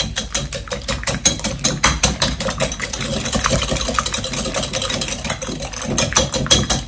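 Eggs and sugar being beaten in a bowl, the whisk clicking against the bowl in a fast, even rhythm, about eight to ten clicks a second.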